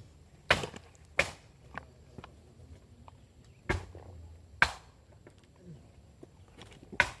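Five sharp knocks at uneven intervals, like a hard object striking wood.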